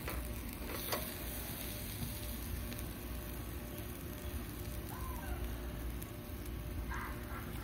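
Hamburger patties sizzling on a small charcoal grill over hot coals: a steady hiss with a few faint pops.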